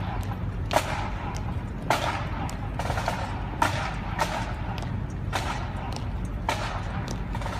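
A marching parade column keeping step: sharp taps about once a second over a low, steady street rumble.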